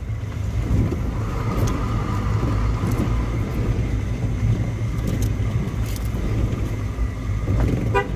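Steady low rumble of a moving car's engine and tyres on the road, heard from inside the car.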